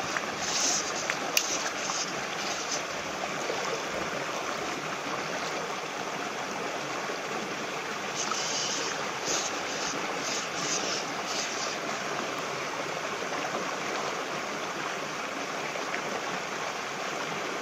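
Small shallow creek running over a riffle: a steady rush of flowing water, with a few short hissy splashes about a second in and again around nine to eleven seconds in.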